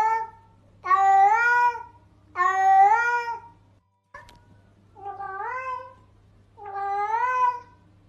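Domestic cat meowing again and again, the attention-seeking kind: drawn-out calls of under a second, about one every second and a half. There is a brief break with a click about four seconds in.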